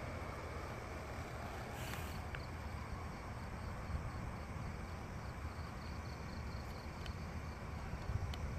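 Crickets chirping faintly in an even, pulsing series over a low rumble of outdoor noise from the handheld phone. A short hiss comes about two seconds in.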